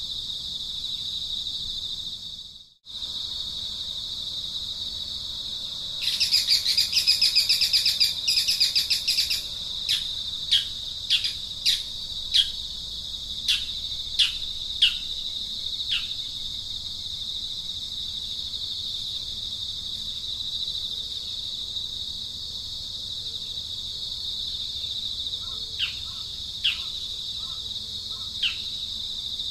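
Steady high-pitched insect drone, with a loud pulsing buzz for about three seconds about six seconds in, followed by a run of short, sharp falling chirps from a bird that return a few times near the end. The sound drops out briefly near the start at an edit.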